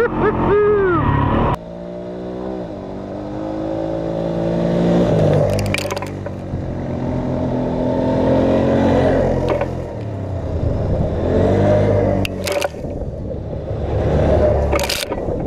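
ATV engine running along a trail, its pitch rising and falling as the throttle changes. There are a few short knocks or scrapes.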